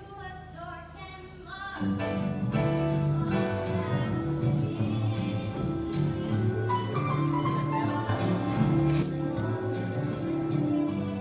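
A song performed live with singing and acoustic guitar, quiet for the first two seconds and then fuller, with a steady beat.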